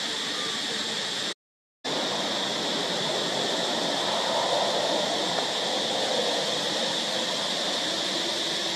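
Steady outdoor hiss with a constant high-pitched insect drone, typical of cicadas in the trees. The sound cuts out completely for about half a second near the start.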